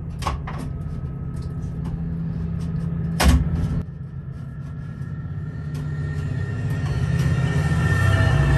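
Clicks and a knock of metal stove-pipe parts being handled as a single-to-double wall adapter is fitted onto the pipe. Under them is a steady low rumble that grows louder toward the end.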